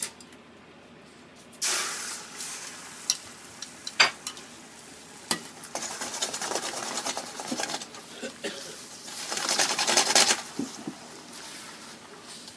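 Beaten egg sizzling in a hot oiled frying pan while it is stirred with a wooden utensil, with a few sharp knocks of the utensil against the pan. The sizzle swells about two seconds in and again near ten seconds.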